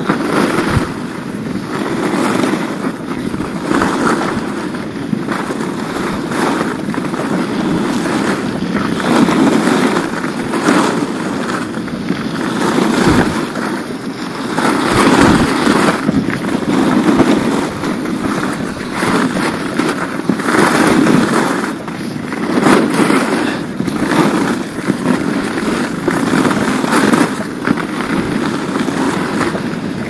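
Skis carving and scraping over groomed piste snow, the hiss swelling and easing with each turn every second or two, over wind noise on the microphone.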